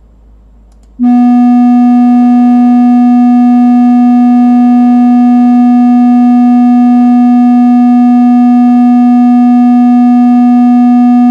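A steady, very loud 244 Hz test tone from an online tone generator, played through a computer monitor's speaker. It starts abruptly about a second in and has many overtones stacked above it.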